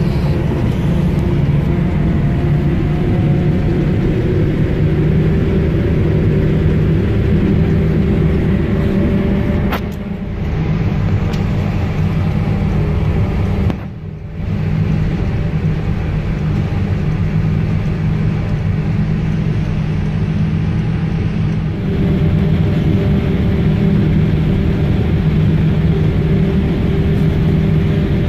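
Heavy farm machinery heard from inside the cab: a steady, loud engine drone with a low hum. The drone dips briefly twice, about ten and fourteen seconds in.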